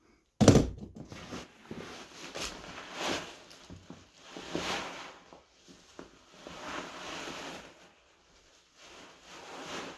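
A sharp thump about half a second in, then a run of rubbing and scraping noises that swell and fade several times: foley props being worked by hand.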